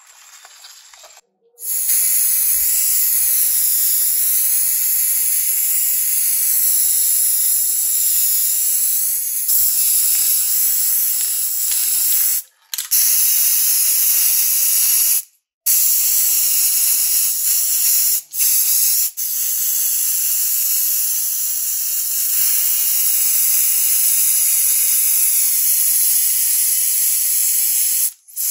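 Aerosol spray-paint can spraying silver paint in long, steady hisses. It starts about two seconds in and is broken by several short pauses.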